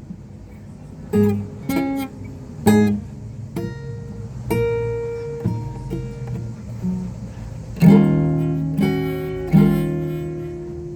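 Guitar music: single plucked notes ring out one after another, then fuller chords are strummed twice near the end.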